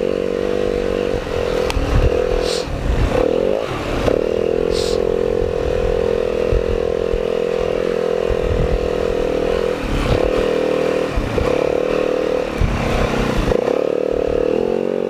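Dirt bike engine running on a rocky trail, its pitch dipping and climbing several times as the throttle is rolled off and on. Knocks and clatter come from the bike going over rocks.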